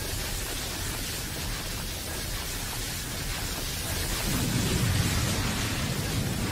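Cartoon battle sound effect of two spinning tops clashing in a burst of energy: a steady rushing hiss with a low rumble under it, the rumble swelling about four seconds in.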